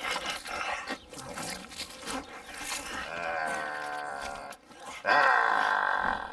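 Zombie growls from a horror film's soundtrack: rough snarling noises, then two long groans that fall in pitch, about three and five seconds in, the second the loudest.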